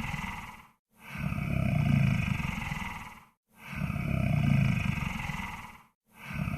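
Monster snore sound effect: deep, rough snoring breaths, one about every two and a half seconds. Each breath swells and then fades, with a brief silence before the next.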